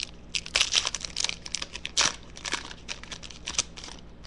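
Foil trading-card pack wrapper crinkled and torn by hand: a run of irregular crackles, the loudest about two seconds in, stopping shortly before the end.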